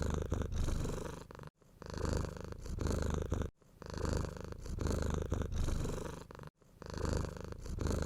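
A domestic cat purring close up, a low rapid rumble that swells and fades with each breath. It breaks off abruptly three times.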